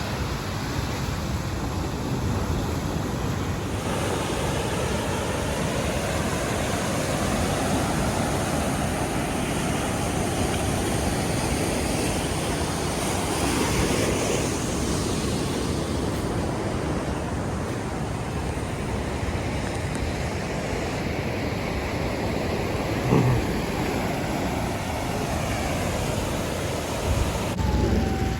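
Sea surf washing in and out, with wind buffeting the microphone. A single brief knock comes about two-thirds of the way through.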